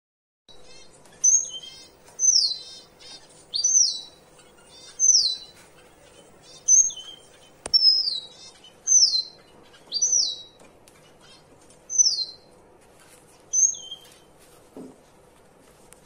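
Caged finches calling: a high, thin call that slides downward, repeated about ten times, a little over a second apart.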